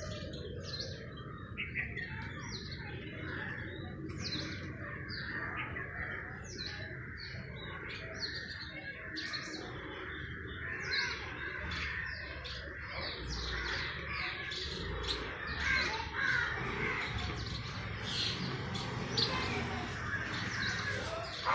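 Many small birds chirping and calling without pause: a quick run of short chirps falling in pitch over a steady chatter of overlapping calls, a little louder in the second half.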